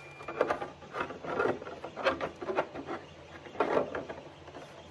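A large 3D-printed PLA helmet being handled: several short, irregular rubbing and knocking sounds of plastic.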